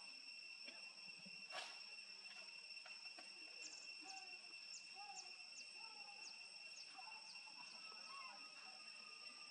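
Faint, steady high-pitched insect trilling, with a run of short, high, falling chirps in the middle and a single faint tap about a second and a half in.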